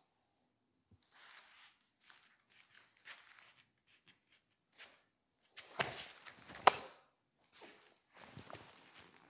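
Bare feet stepping and shuffling on foam jigsaw mats, with cloth of the karate gi rustling, and two sharper slaps about six and seven seconds in as the partners close and grapple.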